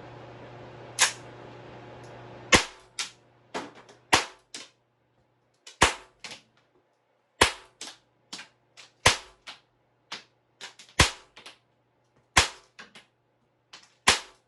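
Tanio Koba GM7 blowback model gun firing caps, one shot at a time: about nine sharp cracks roughly a second and a half apart, each followed by quieter clicks of the action.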